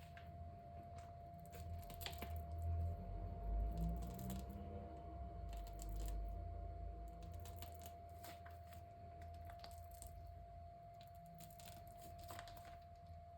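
Quiet hands-on household handling sounds: light rustling and tearing with scattered small clicks, over a steady faint hum.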